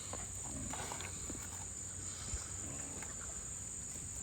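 Insects chirring steadily in one high, even tone, with a few faint short knocks.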